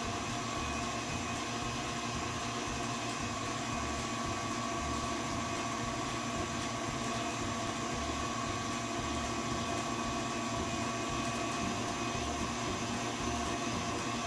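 Stand mixer running steadily at medium speed, its wire whisk beating egg whites and sugar in a steel bowl as they go from soft toward stiff peaks. The motor gives an even hum with a high whine over it.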